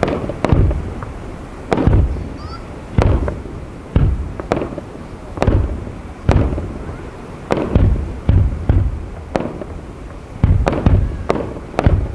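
Aerial firework shells bursting one after another, about one deep boom a second, each dying away before the next.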